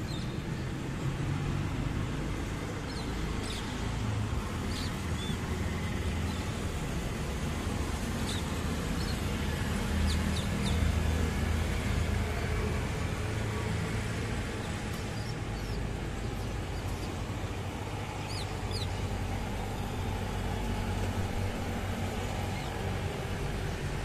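Steady low rumble of road traffic on a flyover below, with scattered short, high bird chirps.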